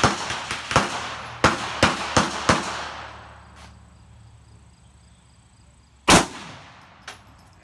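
Gunshots: a run of about seven cracks in the first three seconds, each followed by an echo, then after a pause one much louder, close rifle shot from an AK-pattern rifle about six seconds in, ringing out afterwards.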